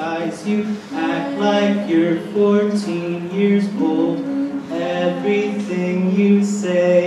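Three voices singing a cappella into handheld microphones, men's and women's voices in harmony, moving through a series of held notes.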